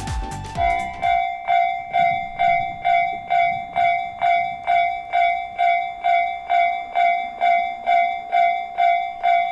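Japanese railway level-crossing warning bell ringing steadily, about two dings a second. Each ding is a clear tone with higher overtones. Music fades out in the first half-second.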